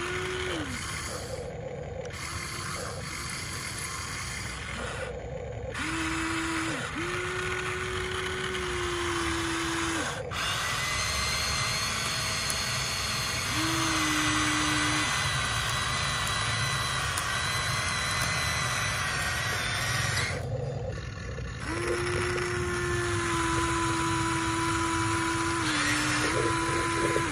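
Electric motors of a Huina RC excavator whining in stretches of one to five seconds as the boom, arm and bucket move, over a steady mechanical hum.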